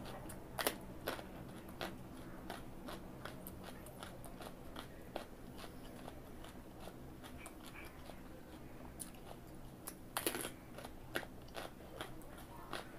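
Raw carrot being bitten and chewed close to the microphone: irregular crisp crunching clicks, with a louder crunch about half a second in and a longer, louder crunch about ten seconds in.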